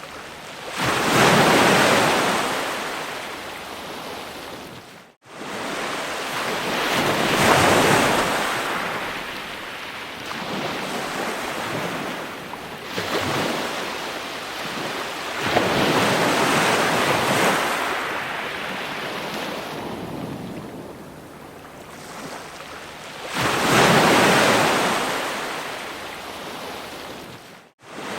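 Ocean waves breaking on a shore, the surf swelling and washing back in surges every several seconds. The sound cuts out abruptly for an instant twice.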